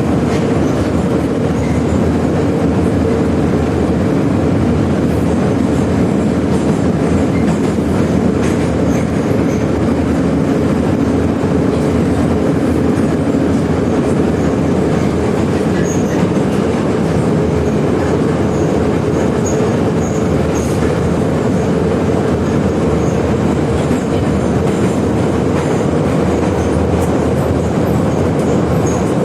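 Moscow metro 81-717/714 'Nomernoy' electric train running between stations: a steady, loud rumble of wheels on rail with a constant hum underneath.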